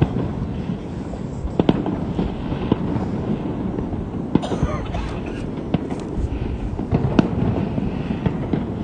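Fireworks going off: a scattered series of sharp bangs and cracks, with a denser burst of crackling about four and a half seconds in, over a steady low background rumble.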